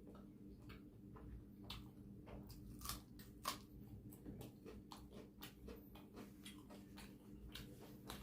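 Close-up eating sounds of a person chewing mutton curry and rumali roti: soft, wet mouth clicks and chewing, scattered and irregular, with two louder clicks about three seconds in. A faint steady hum sits underneath.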